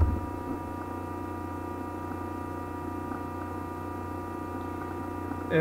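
Steady electrical hum and buzz in the recording, several fixed tones from low to mid pitch, typical of mains hum picked up by the recording setup. A brief low thump right at the start.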